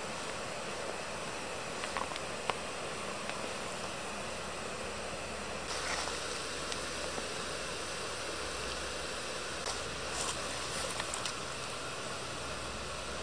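A steady hiss, with a few light clicks and scrapes of a metal utensil in the cooking pot, several of them close together near the end.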